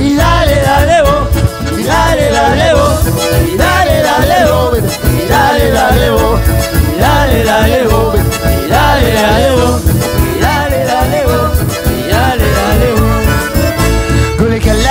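Live band playing an instrumental passage: an accordion melody over keyboard, acoustic guitar and electric bass with a steady beat.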